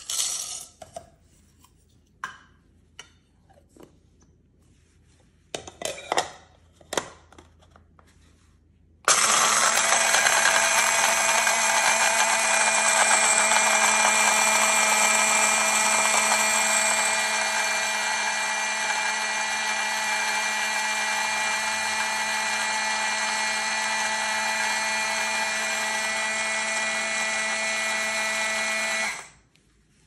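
Mamicooker cordless electric blade coffee grinder grinding coffee beans: a loud, steady motor whine that starts suddenly about nine seconds in, gets a little quieter partway through, and cuts off sharply after about twenty seconds. Before it, scattered clicks and rattles of beans being poured into the steel bowl and the grinder being closed.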